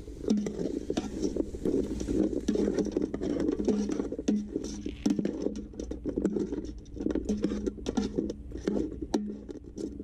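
Chopped bird meat sizzling and popping in its own juices in an aluminium cooking pot, a dense crackle that starts suddenly and keeps up.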